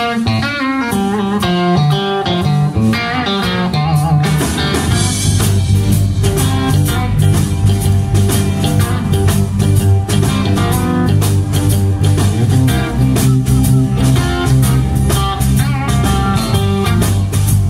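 Live blues-rock band. A guitar plays a lead line alone at first, and about four and a half seconds in the drums and bass come in and the full band plays on together.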